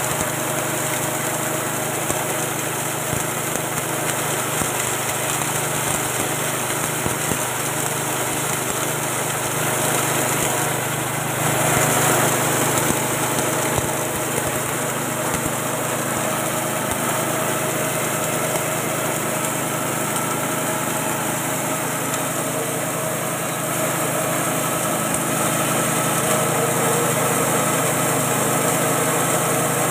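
Small 6.5 hp single-cylinder petrol engine running steadily, driving a grinding mill that turns feed into fine meal, with the mill's rushing noise over the engine. About eleven to thirteen seconds in it grows briefly louder and rougher.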